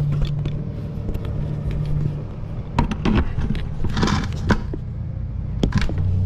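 Clicks and rustling of a wiring harness and plastic connector being handled and pushed through a motorcycle's plastic fairing. The clicks come in a cluster about three seconds in and again near the end, over a steady low hum.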